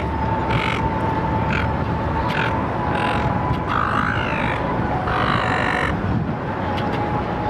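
Silver gulls calling: a series of about six short, harsh calls, the two in the middle of the stretch longer and bending in pitch, over a steady low rumble.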